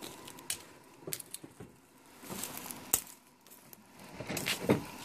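Scattered rustles and sharp clicks of a person moving and handling things in dry brush, with one loud snap about three seconds in.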